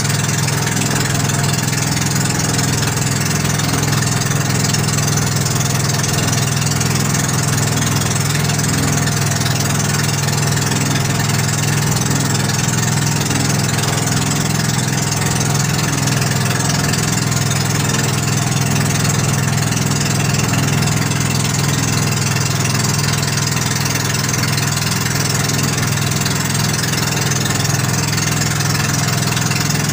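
Outrigger boat's engine running at a steady speed under way, a constant low drone with an even hiss over it.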